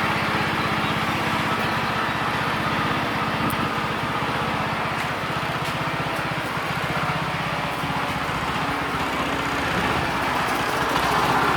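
The 7.5 hp four-stroke gasoline engine of a Kubota S1-500HD riding rice transplanter running steadily at a constant speed.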